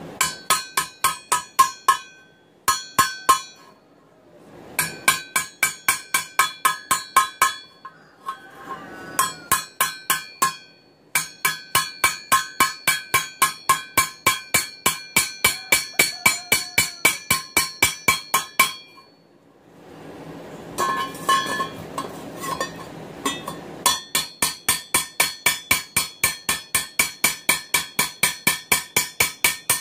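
Hand hammer striking steel on an anvil, the anvil ringing after every blow. The blows come in runs of about three a second with short pauses between them, and there is a patch of lighter, less ringing taps about two-thirds of the way through.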